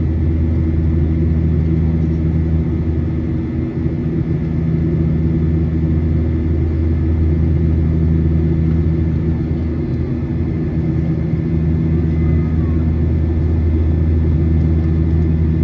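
Steady low drone of a Boeing 737-900ER's CFM56-7B jet engines heard inside the cabin: a constant rumble with several steady low hums layered in it.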